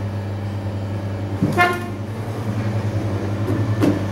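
Electric potter's wheel motor humming steadily as the wheel turns. A short, high-pitched, horn-like toot sounds about a second and a half in, and a brief knock comes near the end.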